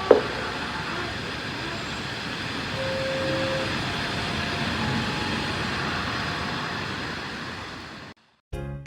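Outdoor traffic noise: a steady hiss that swells as a vehicle passes in the middle, with a sharp knock right at the start. About eight seconds in it cuts off abruptly to silence, and a bright chime melody begins just before the end.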